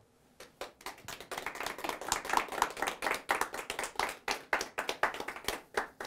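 Audience applauding, with separate claps plainly distinct; it starts about half a second in and dies away near the end.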